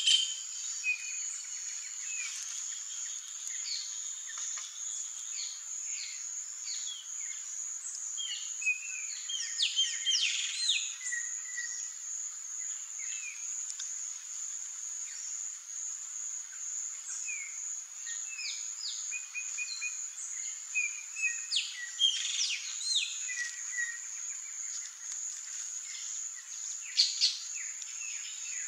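Natural ambience: a steady high-pitched insect drone with many short bird chirps and calls scattered over it, busiest around ten seconds in and again from about twenty seconds in.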